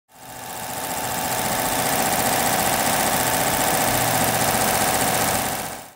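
An engine running steadily, faded in over the first second and faded out near the end.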